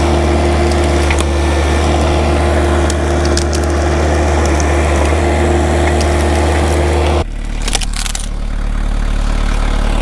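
Vermeer S925TX mini skid steer's engine running hard while its grapple tries to lift a heavy log that proves too heavy for it, with scattered cracking of wood and bark. About seven seconds in, the engine drops to a lower, steady note.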